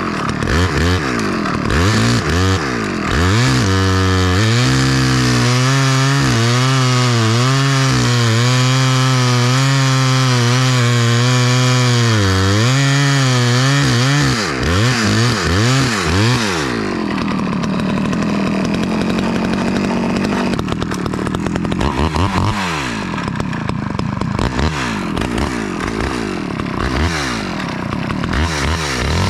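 Small Stihl two-stroke chainsaw cutting ash wood. It is blipped up and down, then held at high revs for about ten seconds with the pitch wavering under load. It settles to a steadier lower note, and near the end it is revved in quick blips again.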